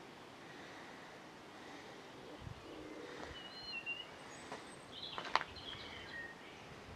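Faint outdoor background noise with small birds chirping in short calls during the second half, and a single sharp click about five and a half seconds in.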